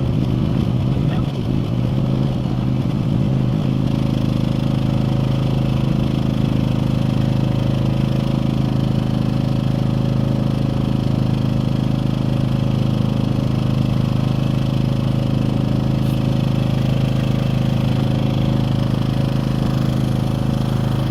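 A boat engine running steadily at a constant speed, with an even drone.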